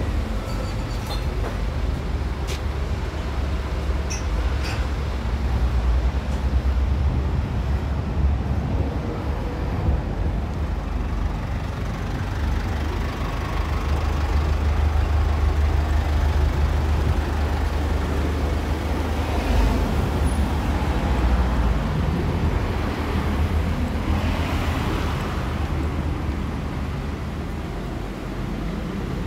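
Steady rumble of road traffic, with a few short clicks in the first few seconds.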